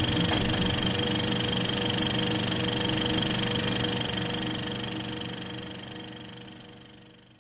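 Film projector running: a steady mechanical whir with a rapid fine clatter, fading out over the last few seconds.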